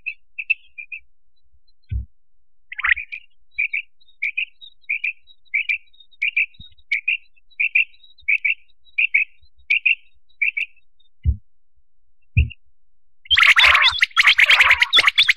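Quail (batair) calling: short high double notes repeated under a second apart in a long series, a lure call for quail hunting, with a few dull low thumps. Near the end a much louder, dense stretch of sound cuts in.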